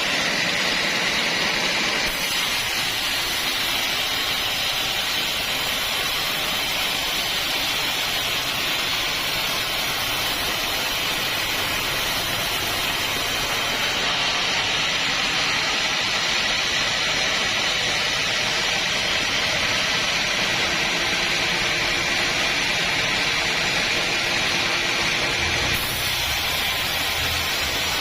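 Homemade sawmill bandsaw cutting through an acacia log: a steady, high-pitched noise of the blade running through the wood. A low hum comes up near the end.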